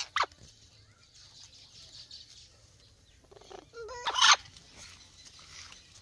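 Parrot calls: a short sharp squawk at the start, then a louder harsh call that bends in pitch about four seconds in.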